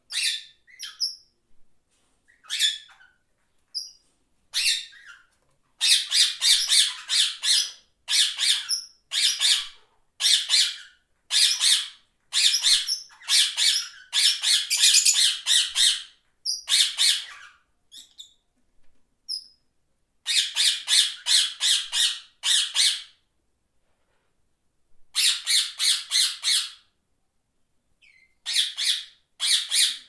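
Sulphur-crested cockatoo screeching: harsh, grating calls, each under a second, in quick runs with pauses of a second or two between them. A few thinner, shorter calls come in the first few seconds.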